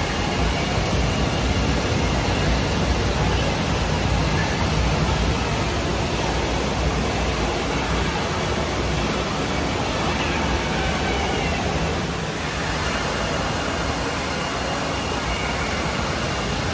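Steady noise of an indoor waterpark: rushing water and echoing crowd din blended into one even wash, with no single sound standing out. The noise shifts slightly about twelve seconds in.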